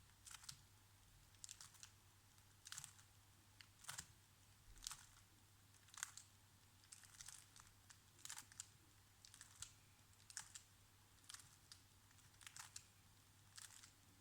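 Faint plastic clicks of a 3x3 Rubik's cube's layers being turned one move at a time, about one turn a second, while the last-layer corners algorithm is performed.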